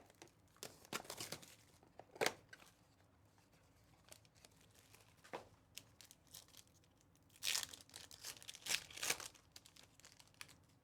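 A sports-card pack wrapper being torn open and crinkled, in short crackling bursts: a cluster in the first couple of seconds and another about 7.5 to 9 seconds in.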